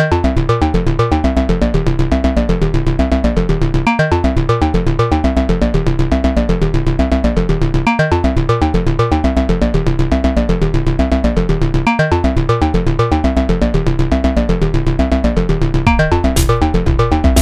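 Electronic music built from loops, with a steady beat and a deep bass line, its pattern repeating every four seconds. A short high hiss sounds near the end.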